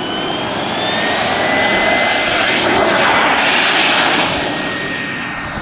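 Radio-controlled model jet's engine whining at high power as the model accelerates along the runway on its takeoff run. The whine rises slightly in pitch over a rushing noise that swells to its loudest about halfway through, then eases off.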